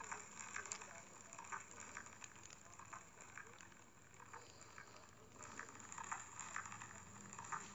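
Faint, irregular crackling and ticking over a steady low hiss.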